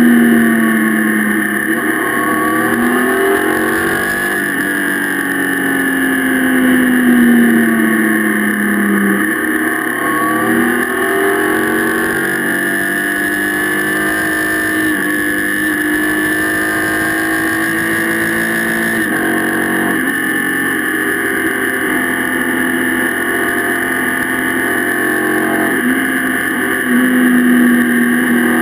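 Motorcycle engine heard from on board at road speed, its pitch rising and falling with throttle and gear changes, over steady wind rush.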